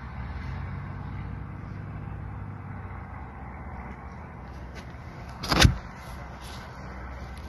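Steady low rumble of wind buffeting a phone's microphone, with one short, loud gust blast about five and a half seconds in.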